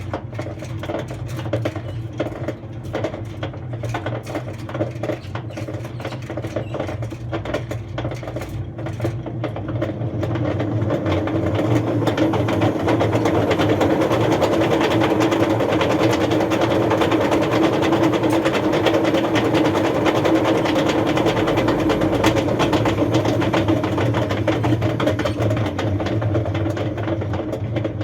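Hotpoint Aquarius WF310 washing machine running with a toy washing machine knocking and rattling around inside its drum, over the rumble of the machine's badly worn drum bearings. The clatter grows louder about ten seconds in and holds.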